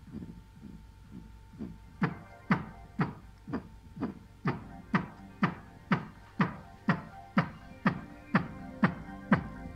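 Electronic music with a steady kick drum, about two beats a second, each hit dropping in pitch, played from a phone through a small bare loudspeaker fed by an active low-pass subwoofer filter and amplifier module. The beat is weaker for about the first two seconds, then comes in louder and brighter.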